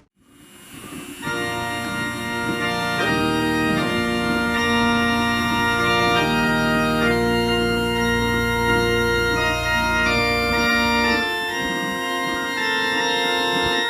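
Music: an organ-like keyboard playing sustained chords, fading in about a second in.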